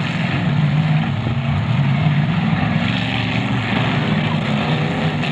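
Several demolition derby cars' engines running hard and revving as the cars push against one another, giving a loud, steady engine drone that rises and falls in pitch.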